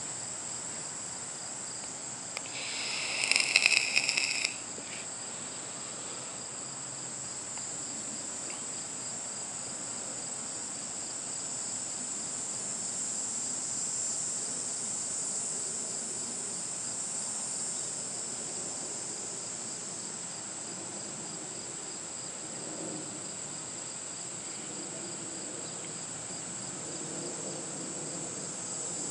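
Steady chorus of insects, a high even trill with a faint regular pulsing beneath it. About three seconds in, a louder, higher sound swells for about two seconds and cuts off.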